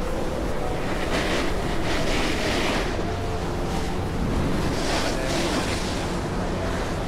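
Snowboard edge hissing and scraping over the groomed snow of an indoor slope during a run, swelling twice as the board turns, with wind rushing over the camera microphone. A faint steady low hum runs underneath.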